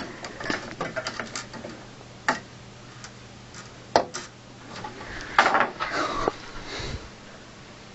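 Small metallic clicks and rattles of a screwdriver and a dropped screw against the steel of a PC case, while fishing for the loose screw with a non-magnetic screwdriver. Scattered single taps, the sharpest about four seconds in, and a short burst of rattling a little later.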